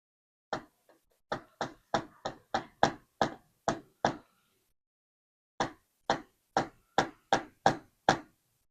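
Sharp taps of a small hammer on a Sezam combination padlock being taken apart: about ten taps, a pause of about a second and a half, then about eight more, roughly three a second.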